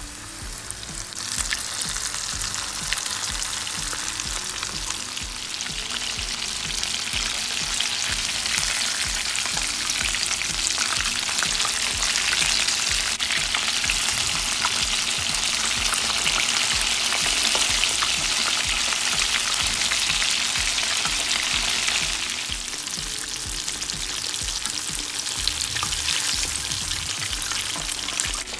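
Breaded chicken drumsticks frying in hot oil: a dense, steady crackle and sizzle that sets in about a second in and eases a little past the two-thirds mark.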